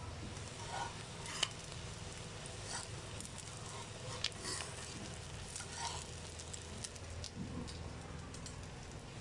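Hot oil sizzling and crackling steadily under egg-coated chicken shami kababs shallow-frying on a tawa, with a few sharp clicks of the spatula as they are turned and lifted out.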